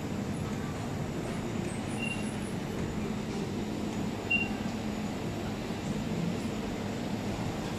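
Steady low background hum of a busy indoor space, with two short high beeps about two seconds apart.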